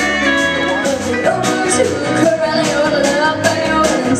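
Country band music with drums on a steady beat, held instrument notes and a singing voice.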